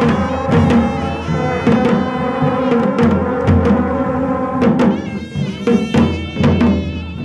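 Himachali devta procession band playing live: drums beaten in a steady pattern of sharp strokes under loud held notes from wind instruments. The held notes thin out about five seconds in, leaving the drum strokes more exposed.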